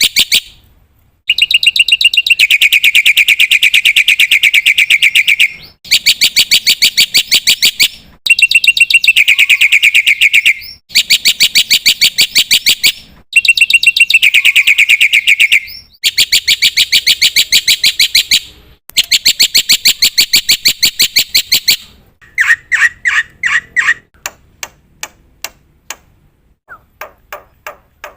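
Black-winged myna (jalak putih) in full song: about seven loud bouts of very rapid, evenly repeated chattering notes, each a few seconds long with short breaks between. Near the end it changes to a brief lower trill and then scattered single notes.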